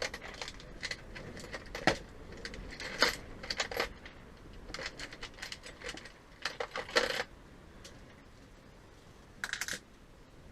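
Small metal hand tools, Allen keys, clinking and tapping as they are picked through and handled: scattered light clicks and short jingling clusters, a few with a bright metallic ring.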